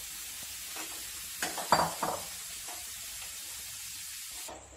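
Paneer cubes and masala sizzling in oil in a steel kadhai while a metal spatula stirs them, with a few scrapes of the spatula against the pan about one and a half to two seconds in. The sizzle cuts off suddenly near the end.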